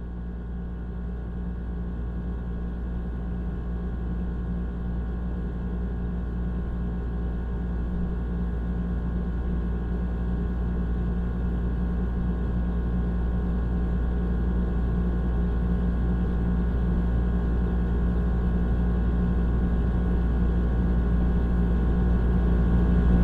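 Low rumbling soundtrack drone with several steady held tones, swelling slowly louder throughout.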